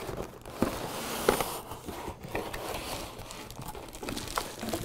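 Cardboard box and plastic wrapping rustling and scraping as a boxed glass blender jar is slid out of its packaging, with a few light knocks.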